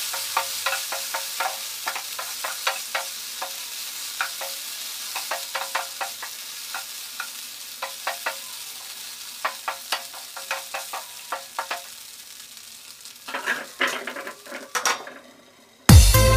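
Chopped long beans sizzling as they stir-fry in a nonstick pan, with frequent clicks and scrapes of a wooden spatula against the pan. About a second before the end the frying sound stops and loud electronic intro music begins.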